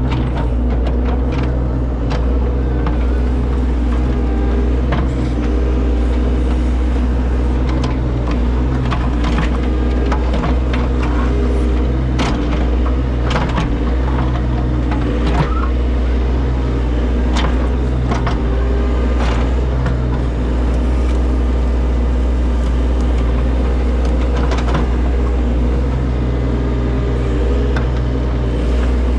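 Heavy equipment's engine running steadily at a constant speed, with scattered sharp clanks and knocks over it.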